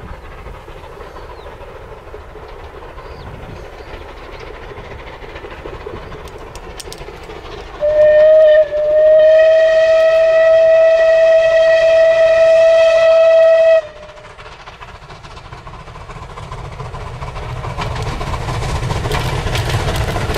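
Merchant Navy class steam locomotive 35006 approaching with a train, sounding its whistle about eight seconds in: a short blast, then one long steady blast of about five seconds. After the whistle the running rumble of the engine and carriages grows louder as it draws near.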